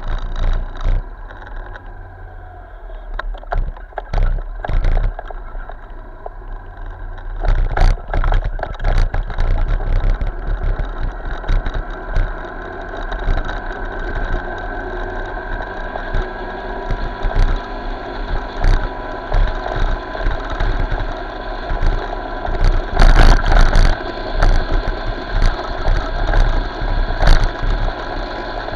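Motorcycle engine running steadily on the move, with heavy wind buffeting and knocks on an action camera's built-in microphone.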